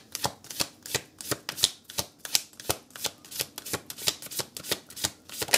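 A deck of tarot cards being shuffled by hand: a steady run of crisp card slaps, about three to four a second.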